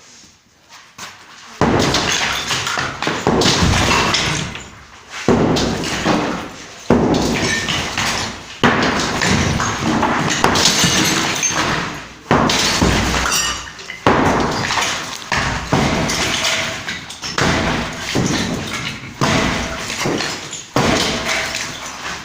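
Demolition work: a dozen or so heavy blows about every second and a half, each followed by crashing, clattering debris, echoing in a large room.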